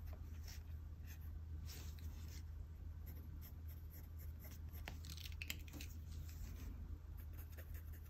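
Pentel GraphGear 500 0.5 mm mechanical pencil scratching faintly across sketchbook paper in short, light sketching strokes, with a steady low hum underneath.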